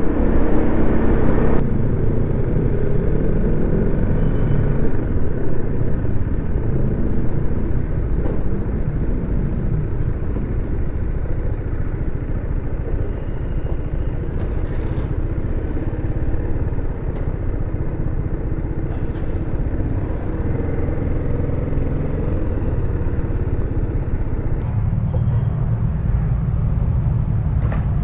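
Motorcycle engine running, with a steady low drone of engine and road noise.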